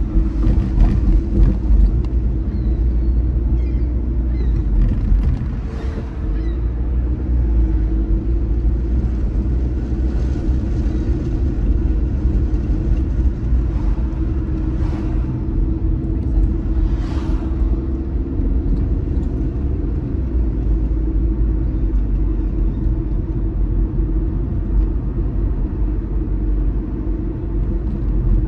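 A car driving slowly on city streets: a steady low rumble of engine and tyre noise, with a couple of brief louder swishes a little past the middle.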